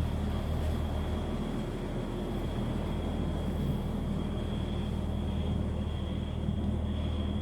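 Steady low mechanical hum with a faint, thin high-pitched tone above it, unchanging throughout.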